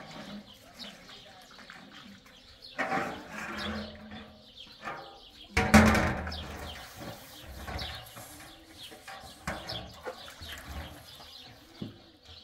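Farmyard animals and birds calling: short high chirps throughout, repeated low rising-and-falling calls in the second half, and a loud noisy burst about six seconds in.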